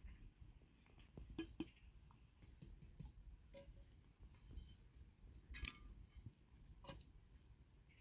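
Near silence broken by a few faint, sharp snips and clicks: a knife cutting green onions at the ground.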